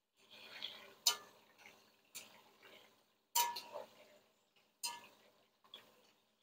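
A wire spider skimmer stirring watermelon pieces in hot oil in an enamelled cast-iron pot, its metal clinking against the pot five times, about a second apart, with soft stirring and frying noise in between.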